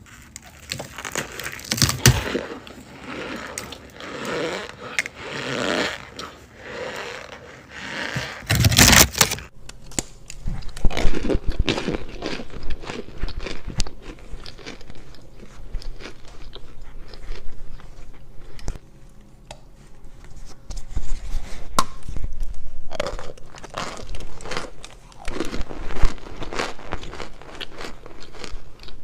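Compressed cornstarch blocks being bitten and chewed close to the microphone: dry crunching and crumbling, broken by sharp cracks at each bite.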